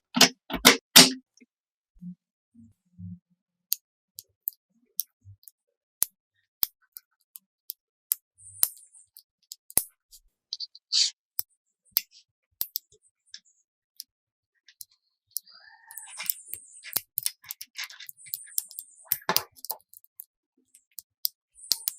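Irregular light clicks and taps of small craft parts being handled, with short scrapes, busiest about two-thirds of the way in.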